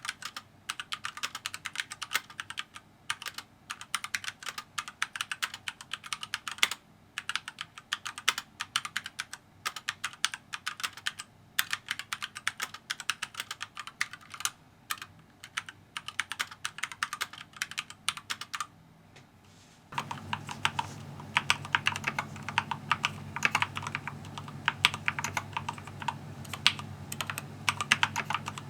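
Continuous fast typing on a Keychron K4 v2 hot-swap mechanical keyboard, a dense stream of key clacks with short pauses. About two-thirds of the way through the sound cuts to another take, where the typing has more low-end thock over a steady low hum.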